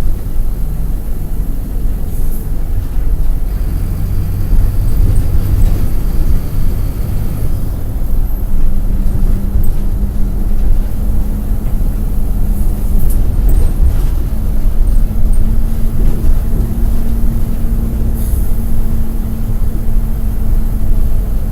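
Mercedes-Benz OF-1722M articulated bus's OM-924 LA diesel engine running under way, heard from on board, its note shifting in pitch a few times as the bus changes speed, with the odd body rattle.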